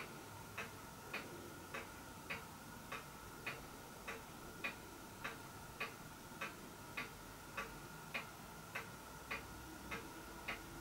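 Faint, even ticking, a little under two ticks a second, over a faint steady high hum.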